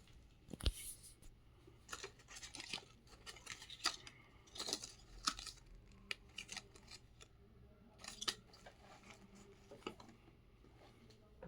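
Packaging and shoes being handled during an unboxing: irregular crisp rustling and small clicks, with a few sharper snips or crackles scattered through.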